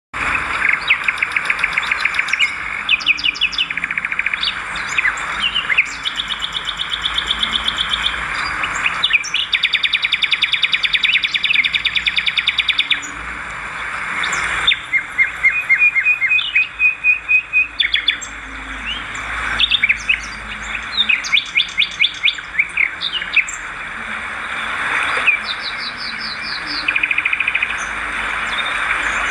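Swiftlets twittering: dense, rapid trills and chirps, repeated in quick runs over a steady hiss.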